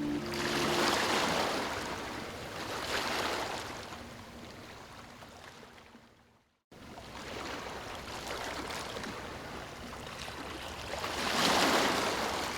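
Ocean waves washing in and drawing back, several surges swelling and fading. About six seconds in the sound fades out to silence, then cuts back in abruptly, as at a loop edit.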